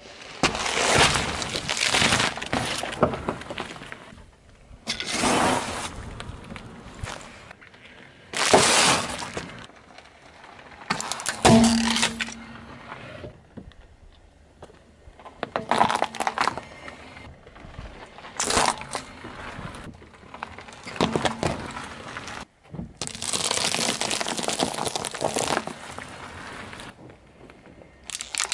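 A car tyre rolling over and crushing objects: fruit, hard candies and modelling clay. The result is a run of about eight separate crunching, cracking and squashing bursts, each a second or two long, with short pauses between them.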